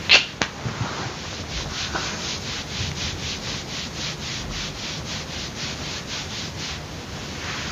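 A hand rubbing back and forth over clothing during a hug, an even rhythm of about three to four strokes a second, after a couple of sharp rustles at the start.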